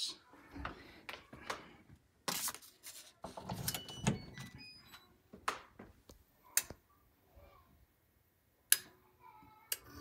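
Scattered handling knocks, clicks and rustles as the refrigerator's power cord is plugged back in, with the sharpest click near the end.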